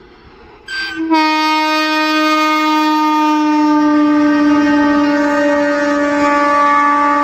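Horn of a passing WAG-9 electric locomotive sounding one long, steady blast that starts about a second in and holds on without a break.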